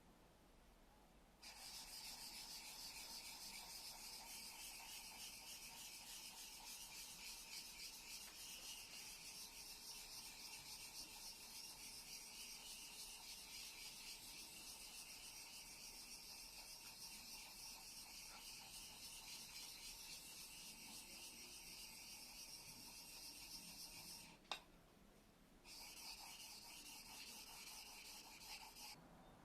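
Steel tool blade being honed on a sharpening stone: a steady, rasping hiss of back-and-forth strokes that stops briefly after a single click and then starts again.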